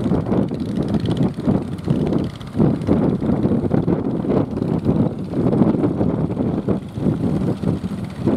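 Wind buffeting the microphone in uneven gusts, a loud low rumble.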